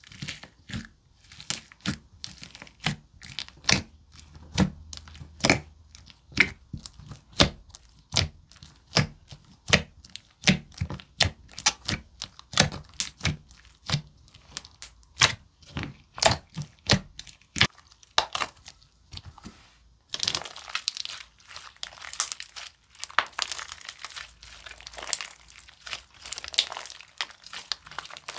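Thick glue-based slime being squished and stretched by hand, giving sharp wet clicks two to three times a second. About twenty seconds in, the clicks turn into a denser, brighter crackle.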